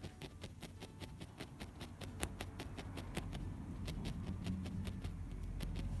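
Felting needle jabbing wool into a felt backing over a felting mat: a quick, uneven run of soft taps, several a second. A low rumble builds underneath in the second half.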